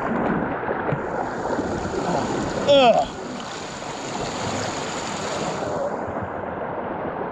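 Shallow creek water rushing and splashing around a floating inner tube, a steady rushing noise. About three seconds in, a short voiced exclamation from the rider.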